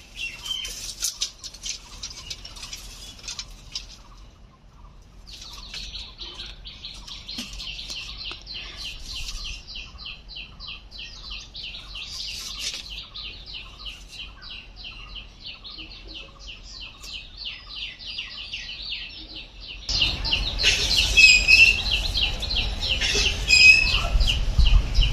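Small birds chirping continuously in quick repeated notes. About twenty seconds in, a low rumble comes in beneath them and the chirping gets louder.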